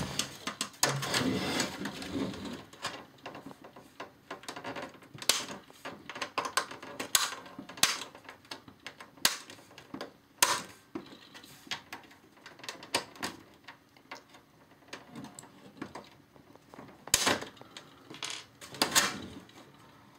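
Irregular sharp plastic clicks and taps as a pin is pushed into the release holes of an Xbox 360's plastic case and its clips are worked loose.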